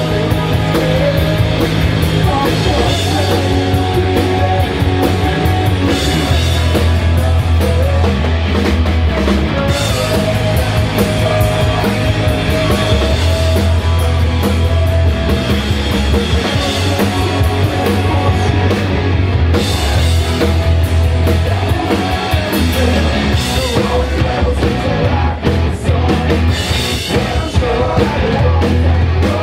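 Punk rock band playing live: electric guitar, bass guitar and drum kit, with sung vocals.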